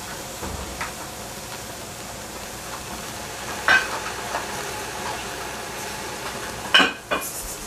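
Steady sizzling from napa cabbage cooking in a stainless steel pot on a gas stove, with a few sharp knocks, the loudest near the end.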